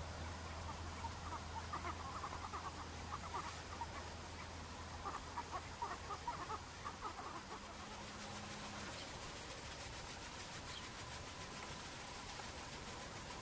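Waterbirds on the lake calling in scattered clusters of short, chattering calls, mostly in the first half. A low steady hum underneath fades out about halfway through.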